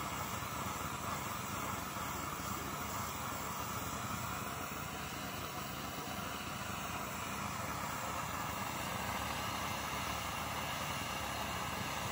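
Hose-fed handheld blowtorch burning with a steady hiss of its flame.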